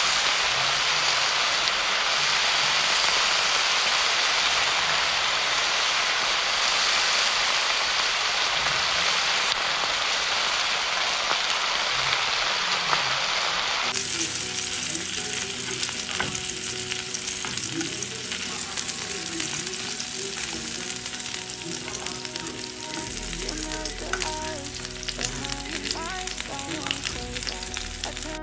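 Lamb chops frying in a hot pan. For about the first half it is a loud, steady sizzle as the pan juices boil off. After a sudden change about halfway through, it turns to a lighter crackling spatter of the chops frying in oil.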